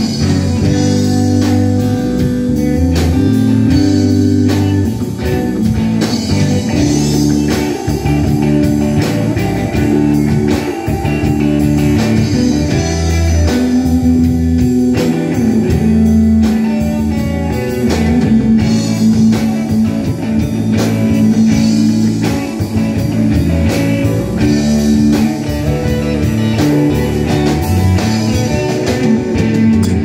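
Live rock band playing an instrumental passage: electric guitars, electric bass and drum kit, with a steady drum beat under the guitar lines.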